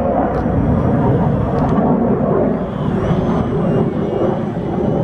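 Electric 3S brushless motor and propeller of an E-flite Edge 540QQ RC aerobatic plane whining as it flies low past, the whine falling in pitch about three seconds in, over a steady rushing noise.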